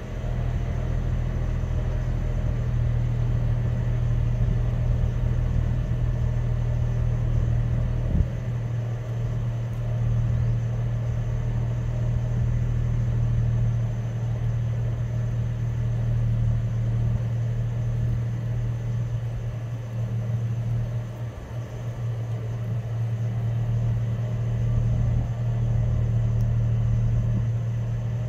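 Chevrolet Trailblazer's engine and exhaust running with a steady low drone, with a single brief click about eight seconds in.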